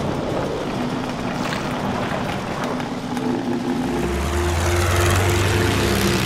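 Propeller aircraft engine droning amid a rushing wind-like noise, as designed sound for an animated aerial chase. A deep steady drone swells in about four seconds in.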